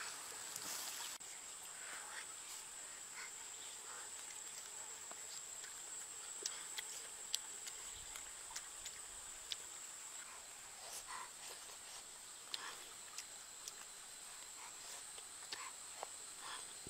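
Insects droning steadily at a high pitch, with scattered sharp clicks.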